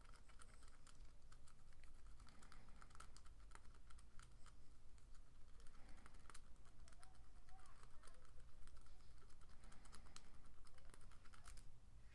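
Thin steel lock pick raking the pins inside a padlock's keyway, held under a tension wrench: a continuous run of small quick clicks and scrapes. The picking is rough and sticky because of the pick's sharp ridges.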